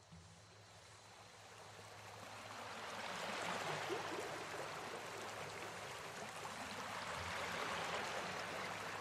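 Rushing water of a waterfall and its stream, a steady hiss that fades in gradually and levels off about a third of the way in.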